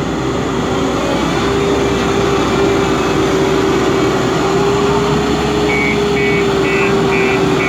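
A backhoe loader's diesel engine running steadily under work, with a constant droning tone. From about six seconds in, a reversing alarm beeps about twice a second.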